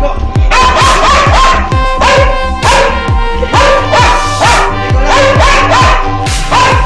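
Electronic background music with a fast, steady beat of about four bass thumps a second, over a dog barking and howling in short repeated calls.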